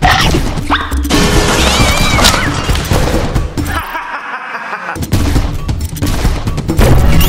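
Background action music mixed with rapid Nerf dart-blaster shots and hits. The music drops out about four seconds in and comes back a second later.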